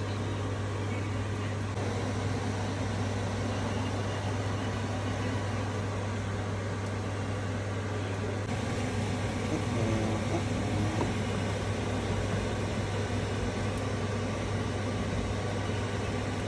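A steady, low mechanical hum with a constant drone that holds throughout.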